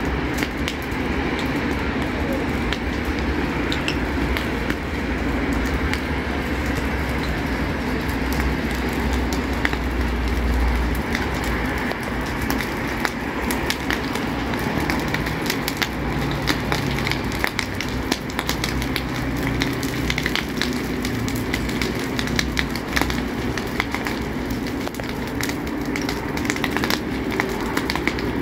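Dry brush burning: a fire crackling with many irregular sharp pops and snaps, which grow denser about halfway through, over a steady low rumble that is strongest in the first ten seconds or so.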